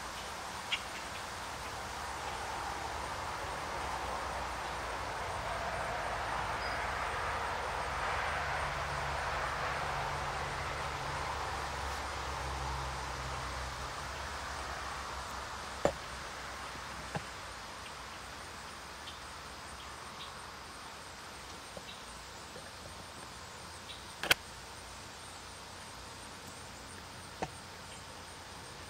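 Outdoor background noise: a low rumble and hiss that slowly swells and then fades away, with a few sharp clicks, the loudest two about halfway and about four-fifths of the way through.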